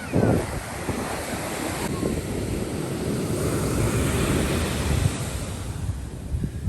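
Ocean surf washing on the beach, with wind noise on the microphone.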